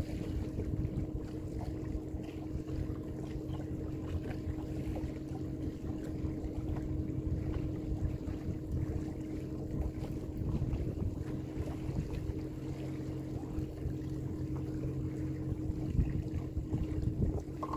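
A boat's motor running steadily with an even hum, with wind buffeting the microphone.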